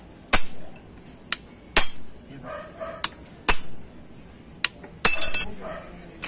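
Hammer blows, metal on metal, on a steel punch held against a Honda 125 motorcycle's steering-head bearing race: about seven sharp ringing strikes at irregular spacing, and a quick clatter of several strikes about five seconds in.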